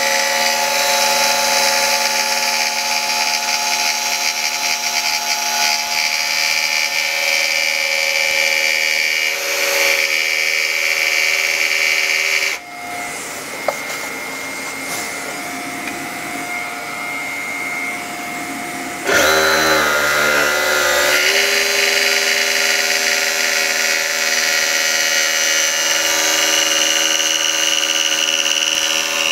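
Cordless jigsaw running and cutting through a metal panel, with a vacuum cleaner running alongside at the cut. Midway the jigsaw stops for about six seconds, leaving the quieter vacuum, then starts cutting again.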